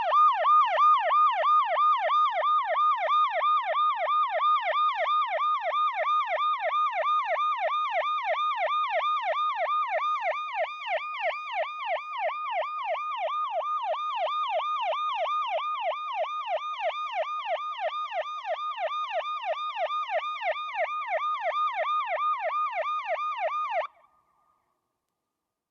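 Police siren in a fast yelp, its pitch sweeping up and down about three times a second, then cutting off suddenly near the end.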